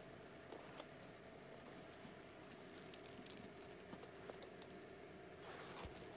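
Near silence: faint, scattered clicks and light rattles of a belt bag's metal chain strap being handled, over a faint steady room hum.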